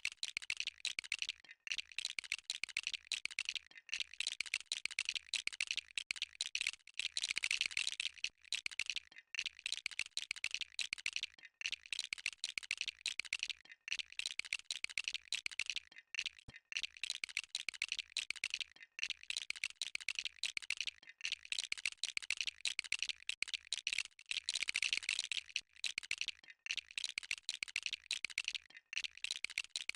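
Dense, rapid clicking and rattling of plastic model-kit parts being handled, clipped and snapped together, in stretches of a second or two broken by short pauses.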